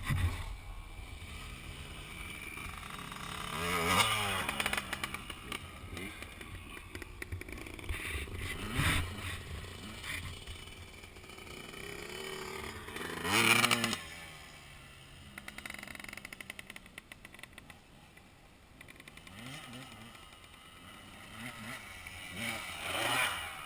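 Dirt bike engines revving up and down, with a rise and fall in pitch about four times, loudest near the middle and again near the end as a bike comes closer, over a steady lower engine note.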